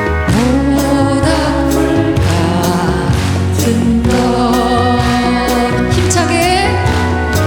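Live band playing a slow song with singing over it: a steady bass line under held vocal notes.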